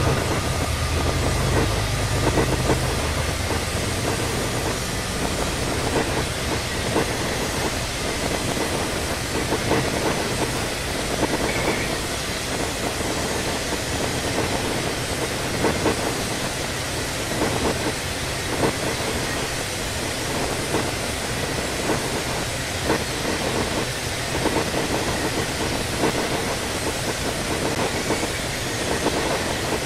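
CSX intermodal freight train rolling past: the steady noise of steel wheels on the rails, with a click-clack every second or two as wheels cross rail joints. A low rumble in the first few seconds fades as the head end moves away.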